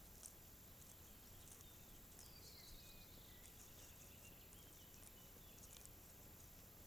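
Near silence in open country, with faint, scattered high bird chirps and one falling song phrase about two seconds in.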